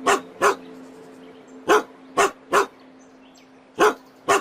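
Dog barking: about seven short, sharp barks in three quick groups, two, then three, then two.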